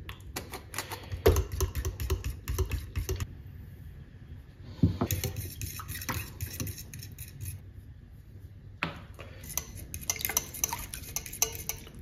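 Metal fork stirring butter and milk in a small stainless-steel saucepan, clinking and scraping against the pan's sides in three spells of quick taps.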